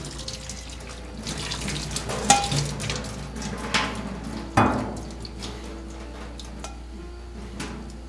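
Boiling water splashing and draining in a stainless steel sink as sliced fish-cake strips in a strainer are rinsed to wash off their frying oil, with two sharp clinks of tongs against the strainer, about two seconds and four and a half seconds in.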